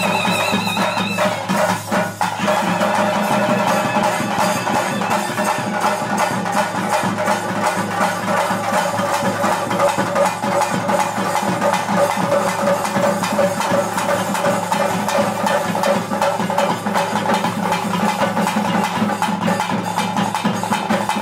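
Traditional ritual music: fast, dense drumming with a sustained melody held over it. A high wavering melody line drops out about a second in, and the drumming carries on steadily.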